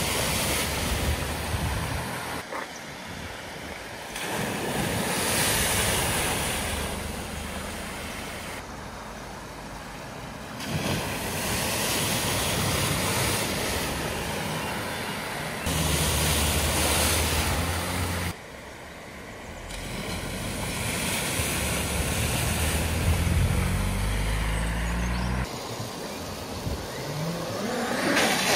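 Cars driving through a flooded ford: engines running and water splashing and spraying off the wheels over the steady rush of the river. The sound changes suddenly several times as one short clip cuts to the next.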